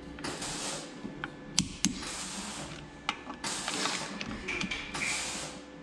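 Torque wrench ratcheting and clicking on the nuts of a bolt-on wheel spacer at a car's front hub: short rasping ratchet strokes with several sharp clicks between them.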